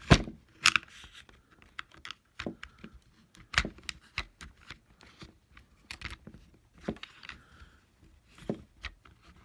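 Small Torx screwdrivers clicking and knocking against a plastic holder as they are pushed into their slots: a string of irregular clicks, the loudest right at the start.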